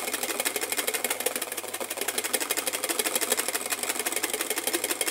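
Wire balloon whisks beating by hand against metal: egg whites being whipped in a stainless steel bowl, with a second whisk working in a metal saucepan. A fast, even clatter of wires striking the bowl, many strokes a second.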